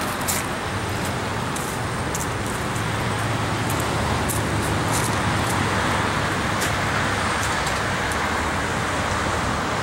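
A vehicle engine running steadily at idle, a low hum under a steady hiss.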